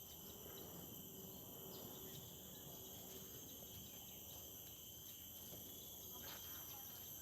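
Faint, steady high-pitched chorus of insects, a continuous multi-tone buzz, over a low rumble of background noise.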